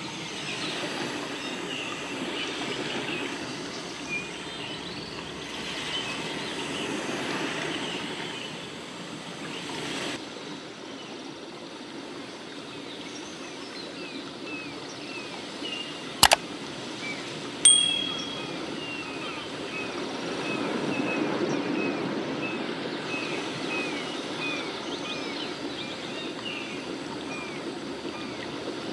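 Outdoor background ambience: a steady rushing noise with a short high chirp repeating about twice a second through the second half. A sharp click comes about halfway through, and a short high beep follows soon after.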